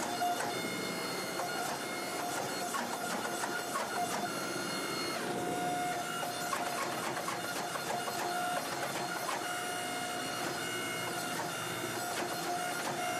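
Hydraulic forging press running with a steady whine while its flat dies squeeze a hot steel billet, with faint scattered clicks. The sound cuts off suddenly at the very end.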